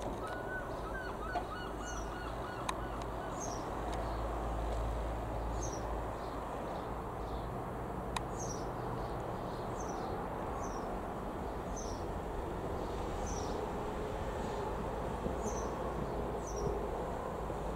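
A single-engine piston light aircraft, a Robin HR.200-160, drones steadily overhead. A bird repeatedly gives short, high, falling chirps about once a second, and a short string of lower calls comes in the first two seconds.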